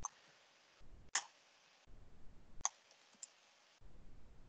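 Four faint, sharp clicks, irregularly spaced, from typing and clicking at a computer keyboard and mouse while a password is entered. A low hum comes and goes under them.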